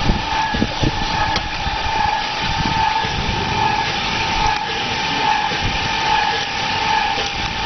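OHT38 hose-pump plastering machine running just after switch-on, with a steady whine from its drive over a rumbling noise with irregular low thumps. Its pump is circulating wet mortar out of the delivery hose back into the hopper.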